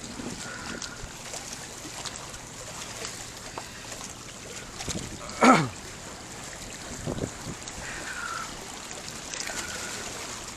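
Water splashing and lapping steadily, with one brief, loud sound about halfway through whose pitch falls sharply.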